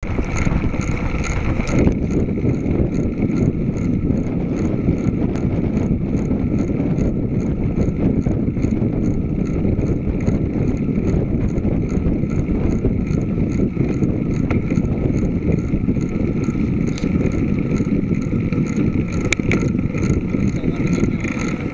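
Wind buffeting the microphone of a bike-mounted camera on a moving road bike, with steady tyre and road rumble.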